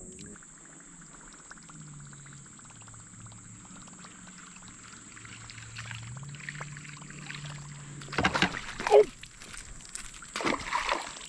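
Kayak drifting with a steady high whine in the background, then sudden splashing bursts twice near the end as a hooked smallmouth bass thrashes at the surface.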